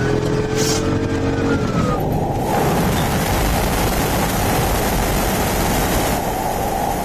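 Police car driven hard in a pursuit: steady engine and road noise with a rushing of wind and tyres. A pitched tone rises and falls away in the first two seconds.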